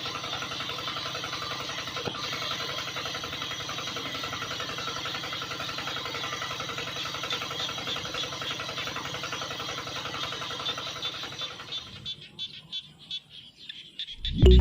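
Small electric motor running with a steady buzz, dying away about twelve seconds in, leaving a few scattered ticks.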